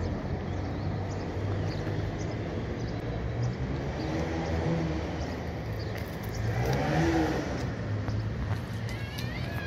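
A motor vehicle's engine running nearby as a steady low rumble, swelling louder and bending in pitch about two-thirds of the way through as it revs or passes.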